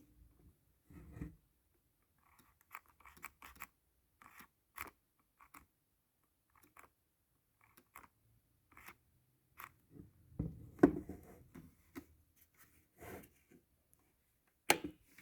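Irregular small clicks, scrapes and knocks of hand work on a cordless drill and tools, with louder knocks about eleven seconds in and near the end.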